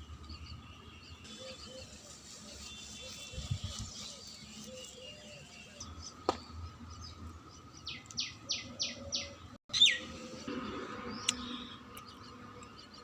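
Birds chirping and calling, with a run of about five quick falling chirps around eight seconds in and a louder falling call just before ten seconds.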